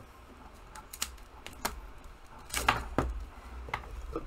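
Scissors snipping through a protective sleeve on a resin ball-jointed doll's arm, heard as a string of short, sharp, irregular clicks, the loudest about two and a half seconds in.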